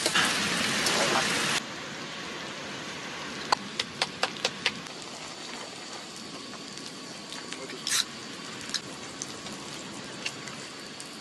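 Meat sizzling on a tabletop griddle, a steady hiss that is louder for the first second and a half and then drops suddenly. A few sharp clicks come about four seconds in and again near eight seconds.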